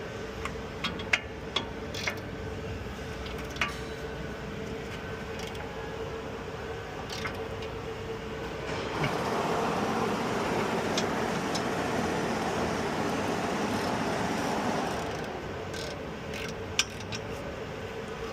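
Car rolling with a steady low rumble and a series of sharp cracks or pops, a few early on and a couple more near the end: the popping noise heard while turning. A louder rushing noise swells about 9 seconds in and drops away about 15 seconds in.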